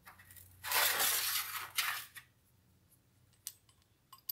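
Small brass tap parts scraping and clinking against a steel bench top for about a second and a half, followed by a few light metallic clicks as a part is fitted onto the brass tap body.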